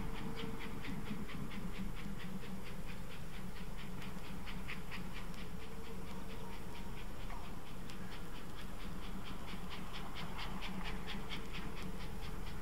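Class 044 three-cylinder 2-10-0 steam locomotive working hard up a gradient, its exhaust beating in rapid, even chuffs over a steady low rumble.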